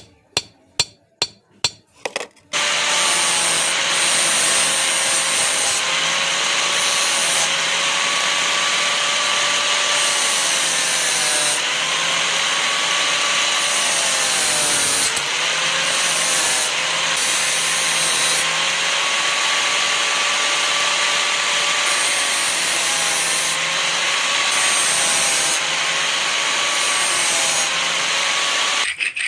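Quick hammer blows on metal for about two seconds, then an electric grinder runs steadily on the steel of the chisel being shaped, its motor whine sagging and recovering again and again as it bears into the work.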